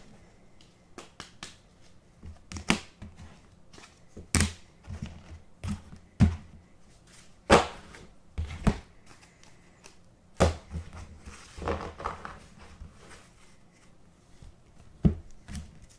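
Trading cards being handled in plastic sleeves and hard plastic top loaders: scattered clicks, taps and short plastic rustles, with a dozen or so sharp knocks as the holders are set down on the table.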